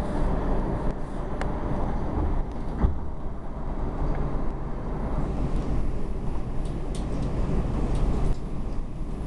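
R142 subway train running at speed, heard from inside the car: a steady low rumble of wheels on track, with a few sharp clicks and knocks along the way.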